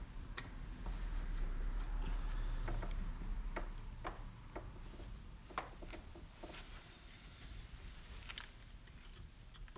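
Scattered light clicks and scrapes as gloved hands rock a stuck plastic coolant hose back and forth on its quick-disconnect fitting, with a low rumble for the first few seconds.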